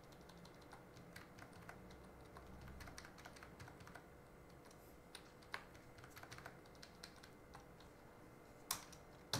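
Faint computer keyboard key taps, scattered and irregular, with a few slightly louder clicks about halfway through and near the end: number keys pressed to nudge selected grid points.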